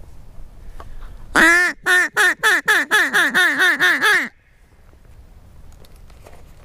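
Mallard duck call blown loudly: one long quack, then about a dozen quick quacks at roughly five a second, cutting off abruptly after about three seconds.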